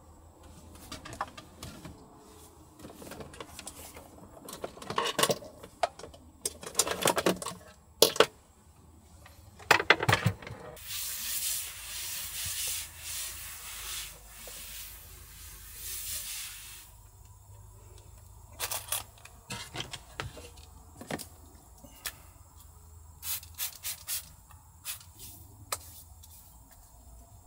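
Small objects being handled: scattered clicks, knocks and rustling, busiest in the first third. A steady hiss runs for about six seconds in the middle.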